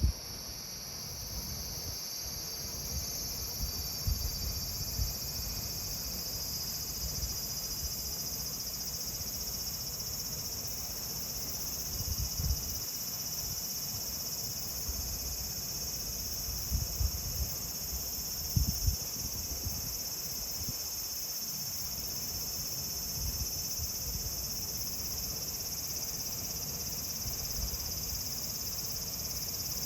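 Cicadas singing in a dense, steady, high-pitched summer chorus, with a few brief low rumbles underneath.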